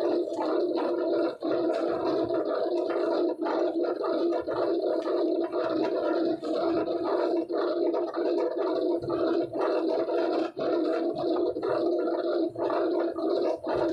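Box-board pasting machine running with a steady, rough drone, broken by many brief dips and clicks.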